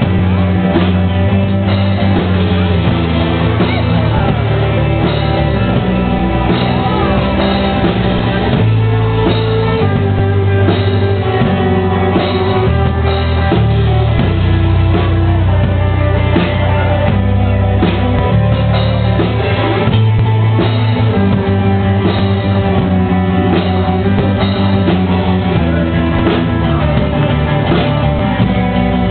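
Live rock band playing loudly: electric guitars, bass and a drum kit keeping a steady beat.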